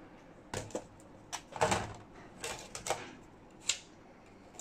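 Aluminium bottom case of a MacBook Pro being set back onto the laptop's chassis: a handful of light, irregular clicks and taps of metal on metal.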